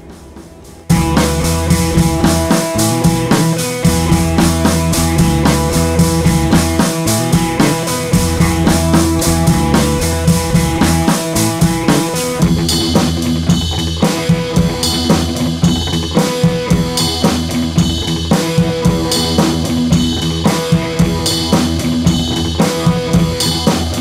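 Background music with a steady drum beat, starting about a second in, its arrangement changing about halfway through.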